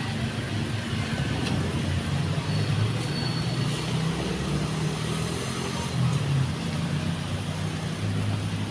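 Street traffic: a steady low rumble of vehicle engines running on the road alongside.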